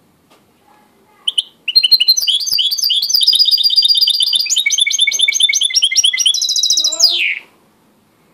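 A white mixto (a canary hybrid finch) singing. A short note about a second in, then about six seconds of fast trilled phrases of repeated high chirps that change from phrase to phrase, ending on a falling note.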